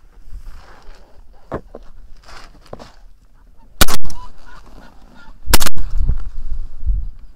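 Two shotgun shots about a second and a half apart, the first a little past the middle and the second soon after, each a sharp loud blast with a short echoing tail, fired at geese honking as they fly past.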